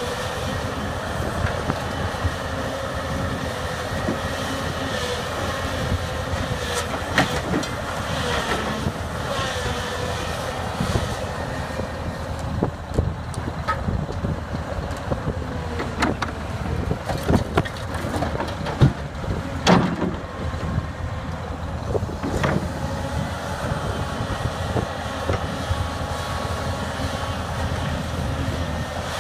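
Case 904B excavator's diesel engine running steadily under working load, with a steady whine, as the machine digs and swings. Scattered sharp clanks and knocks from the bucket working in rubble and dumping into a steel truck bed, the loudest about two-thirds of the way through.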